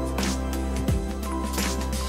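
Background music: a track with a steady beat and sustained bass notes.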